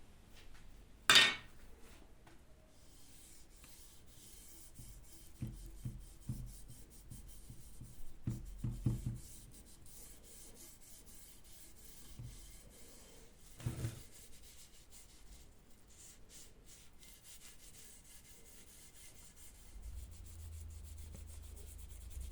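A sharp knock, then long stretches of hand rubbing on the axe, broken by a few light knocks.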